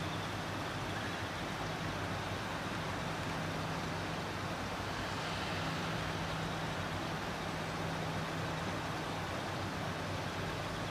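Steady low mechanical hum over an even hiss.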